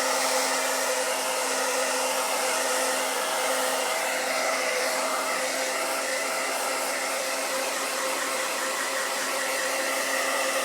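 Handheld hair dryer running steadily on hot: a constant rush of blown air with a steady motor hum under it.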